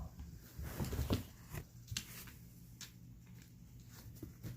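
A cat chewing and tearing at a small bird, a few short irregular crunching and tearing sounds, densest about a second in, over a low steady hum.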